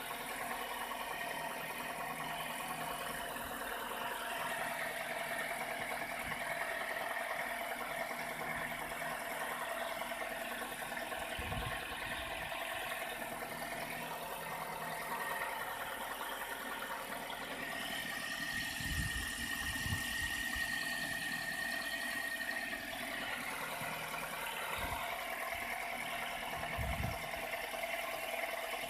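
Nissan X-Trail T31's 2.5-litre engine idling steadily without the knock, with a few soft low thumps.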